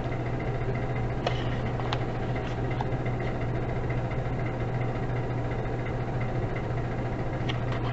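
Steady low machine hum in the room, with a faint rustle and tap of a book page being turned about a second in.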